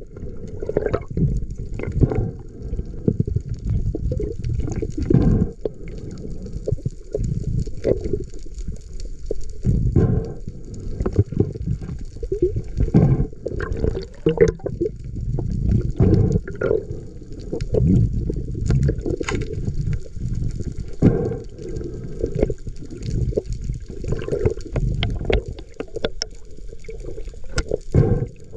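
Water rushing and sloshing, heard muffled as if underwater, in irregular swells, with faint scattered crackles.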